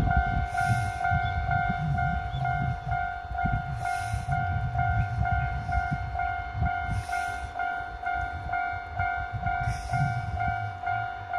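Railway level-crossing alarm ringing, an evenly repeated electronic two-tone ding at about two a second, the warning that a train is approaching. A loud, uneven low rumble runs underneath.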